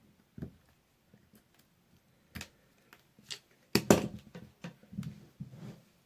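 Scattered clicks and knocks of small tools and parts handled on a workbench. The loudest is a quick cluster a little under four seconds in.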